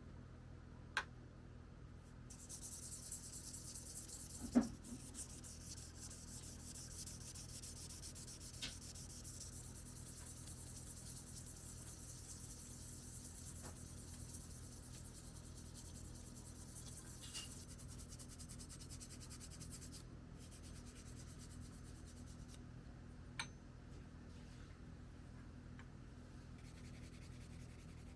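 Faint, steady scrubbing on a bicycle part by hand, starting about two seconds in and easing off about two-thirds of the way through. A few sharp clicks, the loudest a knock about four and a half seconds in.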